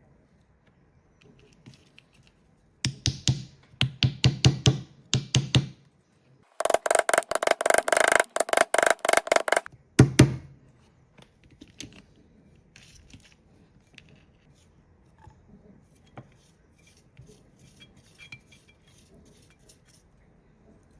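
Insulating tape pulled off its roll in a few short rattling pulls, then one long pull of about three seconds, each a fast run of stick-slip clicks. Quieter handling noises follow.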